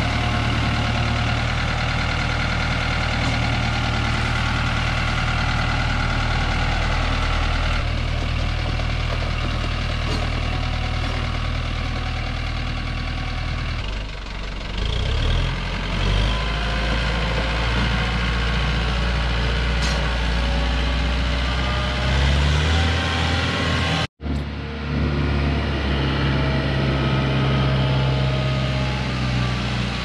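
Farm tractor with a front loader running: the engine idles steadily, then changes pitch about halfway through as the tractor works the loader and moves. There is a brief dropout near the end, after which the engine runs on.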